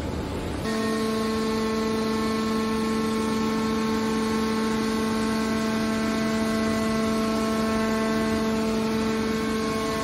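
Hydraulic power unit of a steel baler shear running with a steady, even hum while the lid cylinder presses the baling chamber's lid closed. The hum sets in about half a second in, after a short rougher noise.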